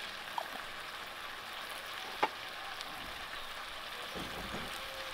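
Chopped capsicum, potato and peas sizzling steadily in mustard oil in a steel kadhai, with a single sharp pop about two seconds in.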